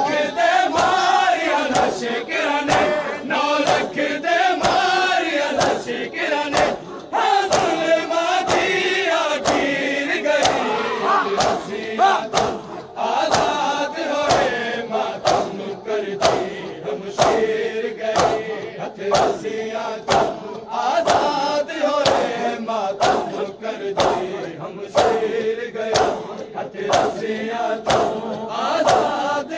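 Men chanting a noha together in a mourning procession, with the steady beat of hands slapping bare chests (matam) roughly once a second.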